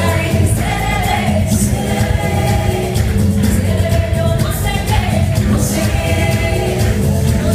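Live pop music: several women singing together over an amplified band with a heavy bass, heard through the PA of a large, crowded hall.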